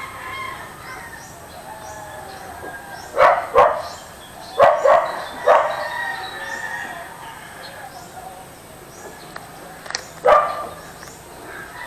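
A dog barking, six short barks: two about three seconds in, three more close together soon after, and one near the end. Small birds chirp steadily behind it.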